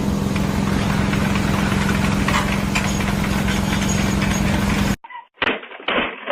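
A motor vehicle engine running steadily and loud, with a strong low hum. It cuts off abruptly about five seconds in, followed by a couple of sharp knocks.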